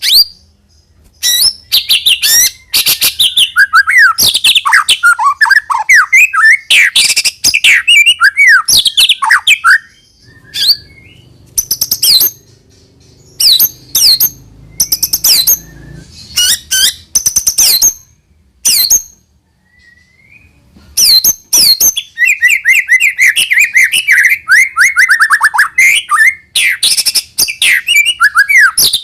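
White-rumped shama singing a loud, varied song of whistles and sharp chirps in quick phrases with short pauses. From about three quarters of the way in comes a long run of rapid repeated notes.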